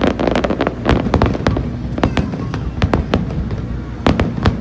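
Aerial fireworks going off: dense crackling bursts at first, then a string of separate sharp bangs a fraction of a second to a second apart.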